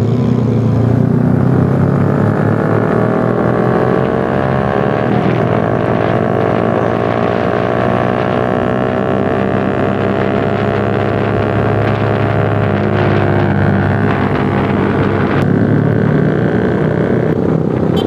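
Yamaha R15 V3's single-cylinder engine accelerating hard, its pitch climbing steadily as the bike speeds up, with wind and road noise.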